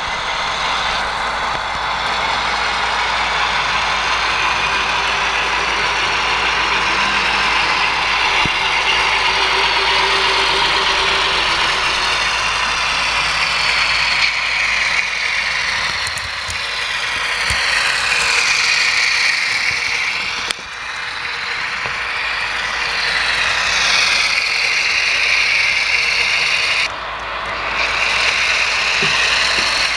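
HO scale model diesel locomotive running along the track: a steady mechanical whirr of the motor and gears with the wheels on the rails, the pitch sliding up and down a few times in the second half.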